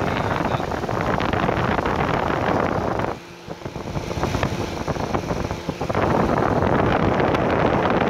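Electric radiator cooling fan running close to the microphone, its airflow buffeting the mic as a steady rushing wind noise. The rush dips for a moment about three seconds in and grows louder again about six seconds in.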